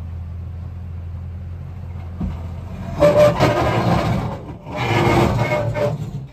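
Toyota Tundra pickup engine running low as the truck crawls down a rock ledge, then two loud rough scraping bursts, each over a second long, about three and five seconds in: the truck dragging on the rock as it drops off the ledge. Cuts off suddenly at the end.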